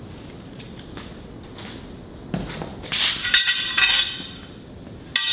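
Steel tire bars clanking and ringing as they are handled to mount a truck tire: a dull knock a little past two seconds, a run of ringing metal clinks around three to four seconds in, and one sharp ringing clang near the end.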